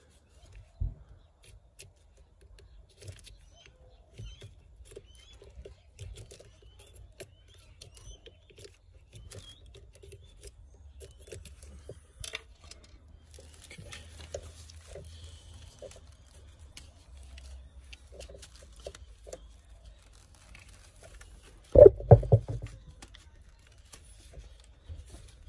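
Gloved hands handling the plastic wiring connector and corrugated wiring loom at a Holden Commodore VZ's engine control unit: soft rustling and small plastic clicks, with a louder burst of several knocks near the end.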